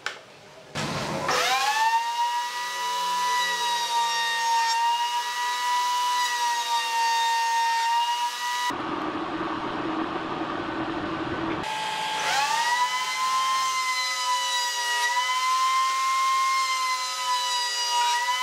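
Table-mounted wood router spinning up with a rising whine to a steady high whine. Its motor cuts out partway and spins up again a few seconds later. Its pitch wavers slightly while wooden strips are fed past the bit.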